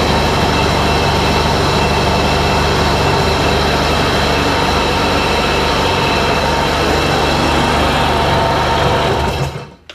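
2002 Sea-Doo GTX DI's Rotax 947 direct-injection two-stroke twin idling steadily, kept running while its throttle position is reset with a diagnostic tool. It is shut off about nine and a half seconds in and dies away over half a second.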